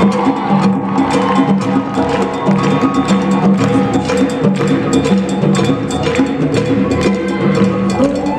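A live band playing a samba: congas and other hand percussion keep a busy, even rhythm under sustained pitched instrument notes.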